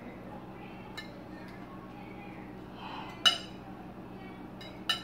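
A table knife clinking against a plate while a hamburger is cut in two: a faint click about a second in, then two sharp, ringing clinks about three and five seconds in.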